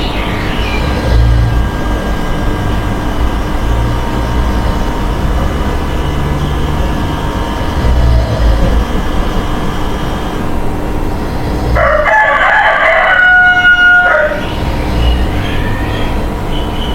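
Slow, regular snoring, a low rumble with each breath every few seconds. About twelve seconds in, a louder call with a steady pitch cuts across it for about two seconds.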